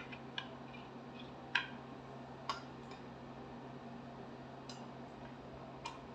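About five light, scattered plastic clicks and taps as the ND:YAG laser's white handpiece and hose are handled, over a faint steady low hum.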